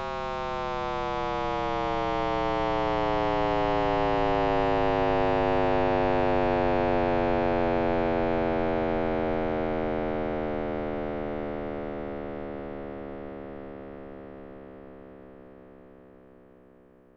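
Synthesized sonification of the Big Bang: one rich electronic tone with many overtones, sliding slowly and steadily down in pitch, swelling up and then fading out toward the end.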